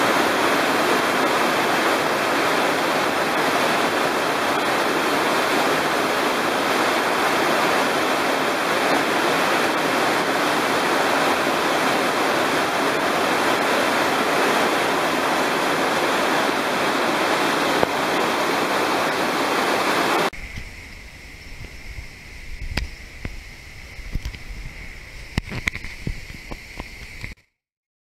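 Kozjak waterfall plunging into its pool in a narrow rock chamber: a steady, dense rush of falling water. About twenty seconds in, the sound cuts to a much quieter low rumble with scattered knocks, then drops out completely just before the end.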